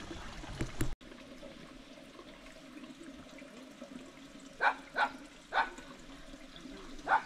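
Water running and trickling at an outdoor tap where pots are being washed. A dog barks three times about two-thirds of the way in and twice more near the end.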